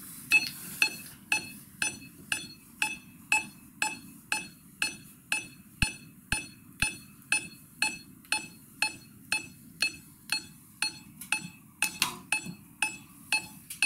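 Smartphone metronome app clicking steadily at 120 beats per minute, two sharp pinging clicks a second. A few faint taps of table-football figures flicked against the ball come in between the beats.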